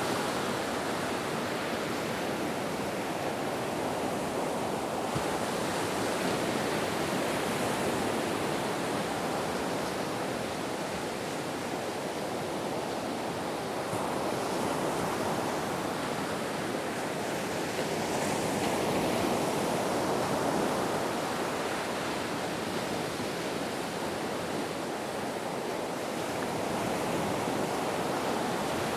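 Ocean surf: waves breaking and washing in as a continuous rush, swelling gently in level a few times as larger waves come in.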